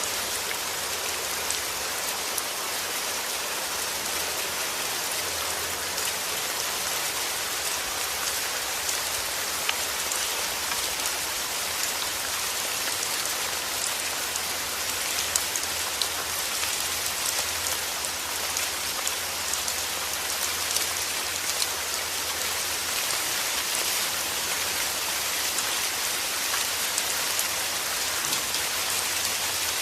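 Heavy rain falling steadily: a dense, even hiss of rain with scattered louder individual drops ticking through it.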